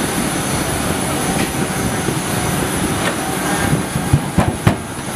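Steady aircraft turbine whine and rush beside a C-5B Galaxy as its nose-ramp extensions unfold, with a few low knocks a little past four seconds in.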